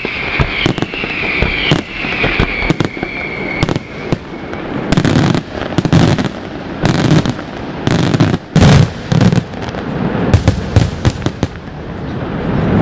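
Aerial fireworks display: a high whistle falling in pitch over the first few seconds, then rapid volleys of shell bursts, with the loudest cluster of booms about five to ten seconds in.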